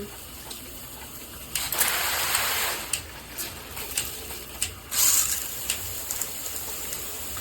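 SparkPod dual shower head spraying water in a fine mist, with two louder surges of spray, about a second and a half in and again about five seconds in, as the spray mode is switched. Several sharp clicks from the shower head's mode dial being turned are heard between them.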